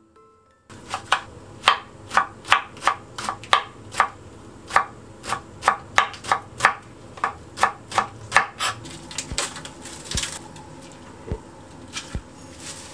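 Kitchen knife chopping on a cutting board in a steady run of sharp strokes, about two to three a second, that thin out to a few scattered knocks after about nine seconds.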